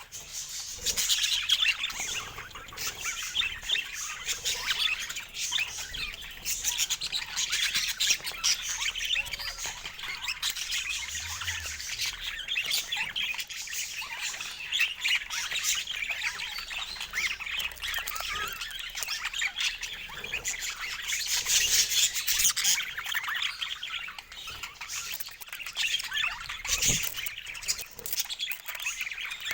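Budgerigars chattering and chirping continuously, a dense stream of quick, overlapping high calls from several birds at once.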